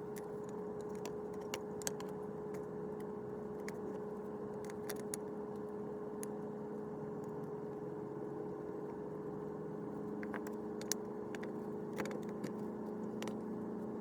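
A small motor running steadily at high speed, a constant hum with a little wavering underneath, and scattered light clicks and ticks throughout.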